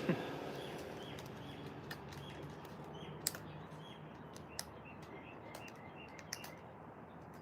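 A run of faint, short, high chirps from a small bird, repeated every second or so, with a few sharp clicks among them.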